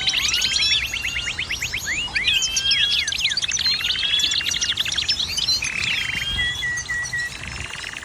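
A flock of aviary finches and canaries chirping and singing together: fast trills, sweeping whistled notes and short chirps overlapping throughout.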